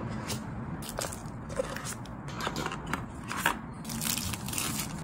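A cardboard phone box and the phone's clear plastic film wrap being handled: irregular crackles, clicks and rustles.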